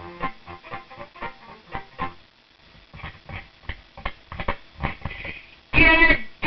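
Music of quickly plucked, guitar-like notes, which pause briefly about two seconds in. Near the end a loud voice cuts in.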